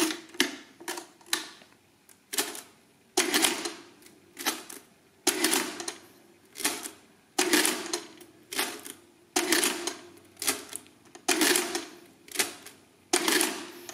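Hamann Delta electrically driven mechanical calculator at work: keys clacking and the motor-driven gear mechanism running through short calculating cycles, a string of clattering bursts roughly once a second, the longer and louder cycles about every two seconds.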